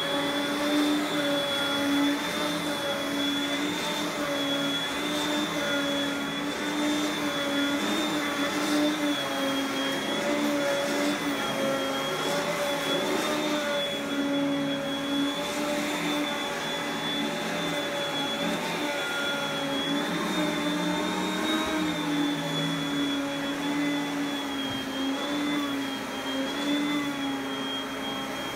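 Upright vacuum cleaner running steadily over a rug, a high whine over a lower hum, its pitch wavering slightly.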